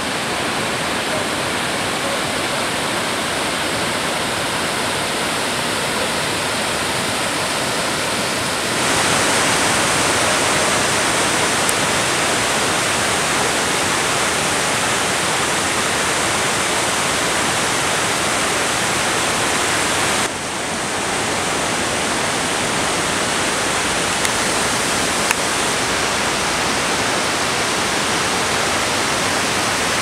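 Mountain waterfall cascading over rocks, a steady loud rush of water. The sound jumps abruptly louder and brighter about nine seconds in, then drops suddenly about twenty seconds in.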